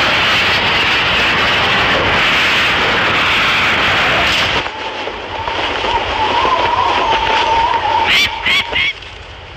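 Rushing wind of a peregrine falcon's high-speed dive, loud and even for about four and a half seconds. It then drops to a quieter whoosh with a thin whistling tone, and a few short, squeaky calls come near the end.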